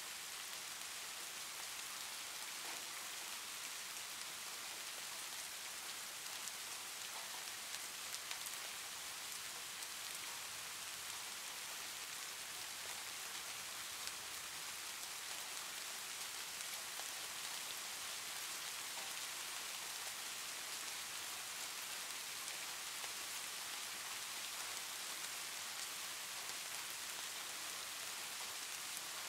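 Soft, steady rain: an even hiss of rainfall with faint scattered drop ticks, from a recorded rain ambience track.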